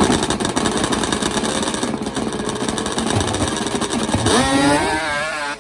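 Kawasaki H2 750 two-stroke triple drag bike engine running hard with a fast, raspy firing, then revving up with a rising pitch about four seconds in, as it readies to launch.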